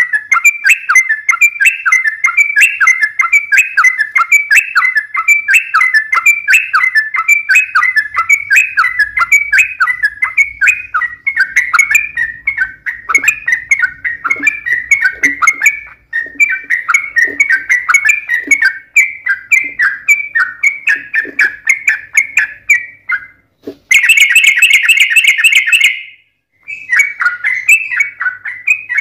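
Yellow-vented bulbul (trucukan) song: rapid bubbly chattering phrases in a long unbroken run. About 24 seconds in, a loud harsh note of about two seconds cuts in. After a brief break the chattering resumes.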